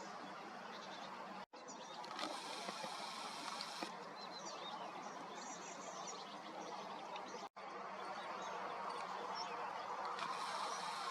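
Lakeside morning ambience: a steady hiss with small birds chirping and calling high above it, busiest about two seconds in and again near the end. The sound cuts out for an instant twice.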